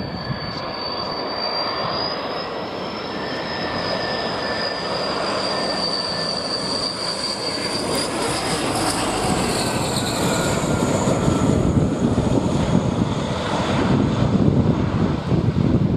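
Dassault Atlantique 2's twin Rolls-Royce Tyne turboprop engines: a high whine over a broad propeller rumble. The whine drops in pitch about nine to eleven seconds in as the aircraft goes past, and the rumble grows louder toward the end.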